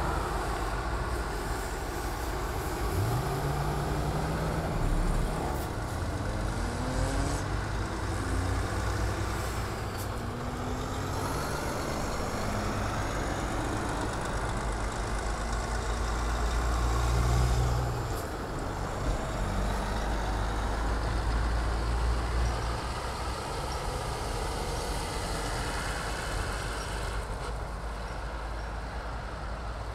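Heavy trucks driving past one after another, their diesel engines rumbling steadily with rising pitch as they accelerate. The loudest truck passes about 17 seconds in.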